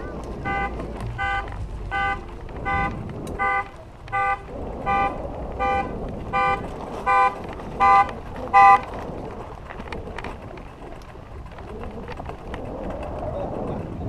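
An electronic beeper sounds about thirteen short, evenly spaced beeps, a little under a second and a half apart. The beeps grow louder toward the end and stop about nine seconds in.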